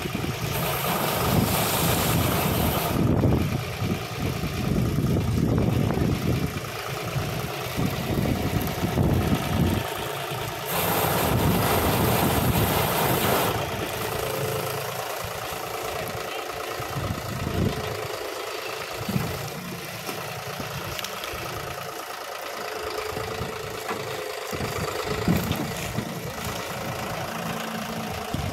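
Tractor engine running steadily while it powers a tractor-mounted sugarcane harvester through standing cane. Two louder rushing spells of a few seconds each come near the start and about eleven seconds in.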